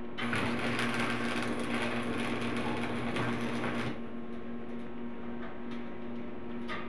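Electric arc welding on a steel roof frame: a loud, crackling arc burns for about four seconds and cuts off suddenly. A steady low hum continues throughout.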